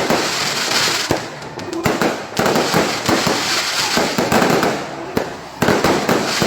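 Fireworks going off in quick succession, with many sharp bangs and crackles overlapping without a pause.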